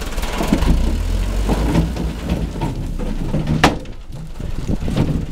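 Stuck dump truck's engine revving hard as its rear wheels spin in loose gravel and rubble, with a sharp clank about three and a half seconds in.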